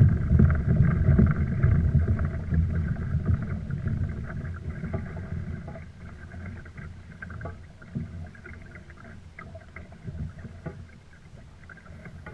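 Low rumble and splash of water and wind around a fishing kayak, loud at first and fading after about five seconds, with a few scattered knocks.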